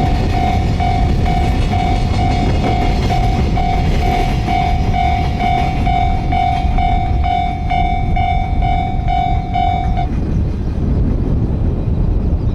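Japanese level-crossing warning bell dinging in a fast, even repeat; a second, higher bell pattern joins about six seconds in, and both cut off about ten seconds in. Under it, the steady heavy rumble of a train running past on the line.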